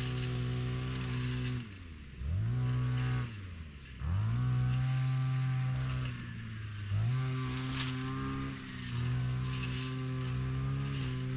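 Petrol strimmer (brushcutter) engine running at high throttle, easing off toward idle and revving back up four times.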